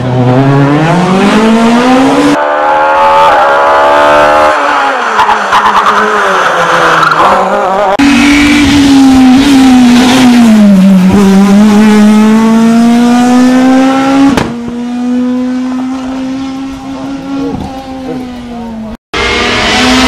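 Rally cars' engines at high revs in several short clips joined by cuts: the pitch climbs as the cars accelerate out of corners, drops and climbs again through a bend, then holds steady on a quieter, more distant car. A brief dropout comes near the end.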